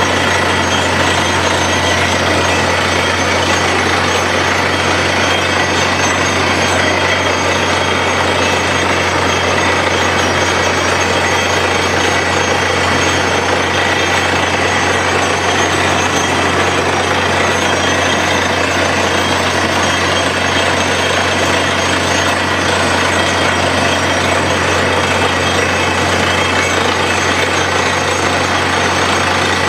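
Truck-mounted borewell drilling rig running under load while drilling with compressed air: a loud, steady engine and compressor noise with a fast hammering pulse underneath.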